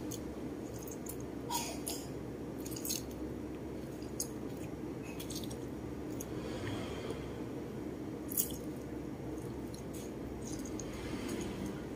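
Lime halves squeezed by hand over a bowl: soft wet squishing with a few short sharp clicks, over a steady low background hum.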